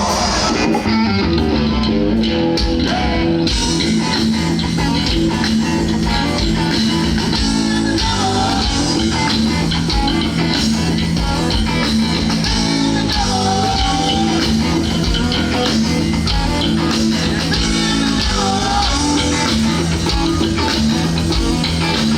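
Rock music with guitars, bass and drums.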